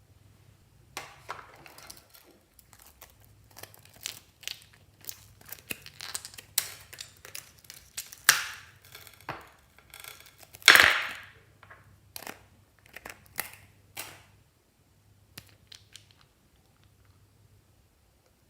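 Fluffy slime being squished and mixed by hand, giving a run of irregular crackles and pops. The loudest come about eight and eleven seconds in, and they thin out after about fourteen seconds.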